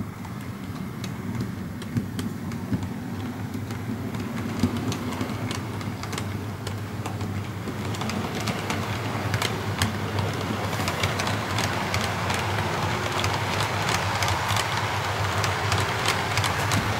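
Class 40 diesel locomotive D368 pulling away. The engine keeps up a steady low drone while a hiss builds, and sharp wheel-over-rail clicks come more often and louder from about halfway on.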